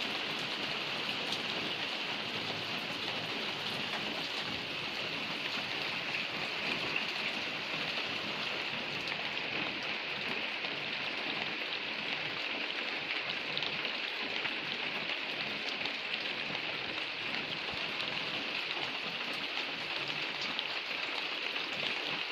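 Steady heavy rain falling and pattering on surfaces, an even hiss of countless drops with faint scattered ticks of individual drops.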